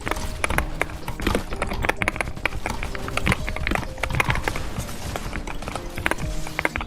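Computer keyboard keys clacking in quick, irregular strokes, over background music.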